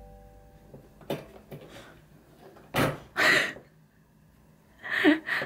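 Wire-grille door of a plastic pet carrier banging shut, two metallic clatters close together about three seconds in, with another clatter near the end.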